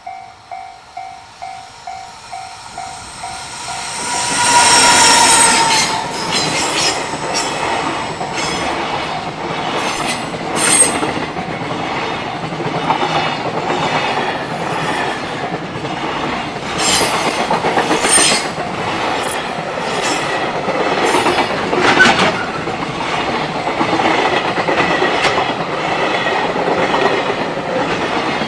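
A level-crossing warning bell dings about twice a second. About four seconds in, a freight train arrives and runs past, its wheels clattering and clanking over the rail joints, with high wheel squeals here and there.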